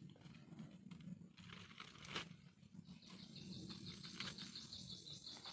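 Faint rustling and crackling of dried banana bracts being laid and pressed onto a mushroom bed, with one sharper crackle about two seconds in. From about three seconds in a high, rapidly pulsing animal trill runs over it and stops near the end.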